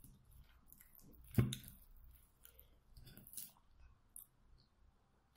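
Chopsticks clicking and scraping in a ceramic bowl as they pull apart a sticky-rice pork zongzi, with soft chewing sounds; one louder knock about a second and a half in.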